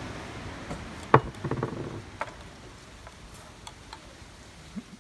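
A sharp click about a second in, a few smaller clicks just after it, then scattered light ticks, over a quiet background.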